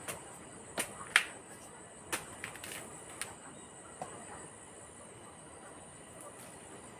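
A machete hacking at a fishtail palm: about six sharp chops in the first four seconds, the loudest about a second in. Insects keep up a steady high-pitched buzz behind.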